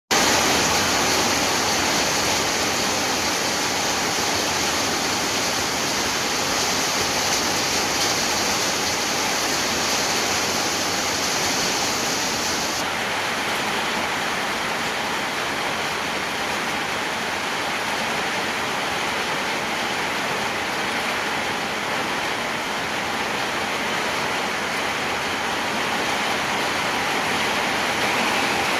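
Heavy rain pouring down in a rainstorm, a steady dense hiss. Its sharpest, highest hiss falls away about halfway through.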